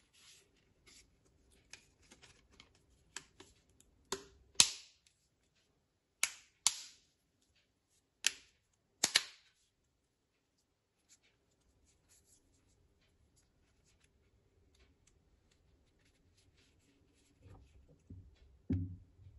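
Plastic back cover of a Nokia 2660 flip phone being pressed onto the phone body and clipping into place with a series of sharp snaps, several in quick pairs. Near the end there are dull, low knocks of the phone being handled.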